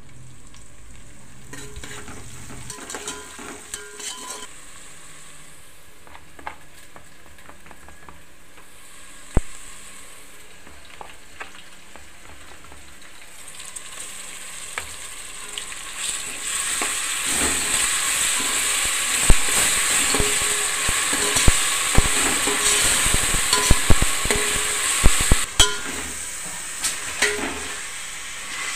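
Chicken pieces frying in hot oil in a cooking pot while being stirred with a metal spoon. The sizzle is light at first, with occasional knocks, then turns loud about halfway through, with sharp clinks of the spoon against the pot.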